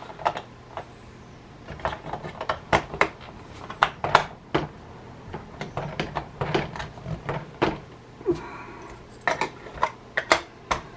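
Irregular sharp clicks and clacks of a plastic Nerf blaster and its dart clips being handled.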